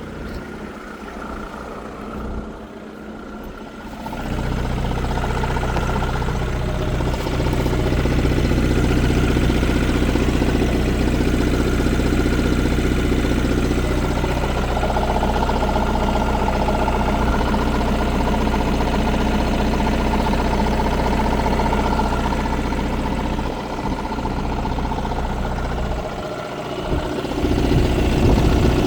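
Audi A6 C7 2.0 TDI four-cylinder diesel idling cold with a knock, which the owner thinks sounds like the flywheel but comes too fast for it. The engine gets much louder about four seconds in.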